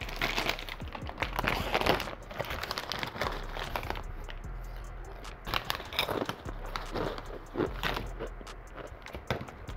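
Crinkling of a large Ruffles potato chip bag, repeated crackles as a hand rummages inside it among the chips.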